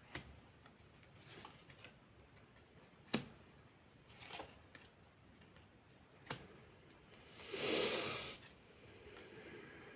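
Faint handling of divination cards: a few light taps and rustles as cards are shuffled, drawn and laid down, with a longer sliding swish near the end.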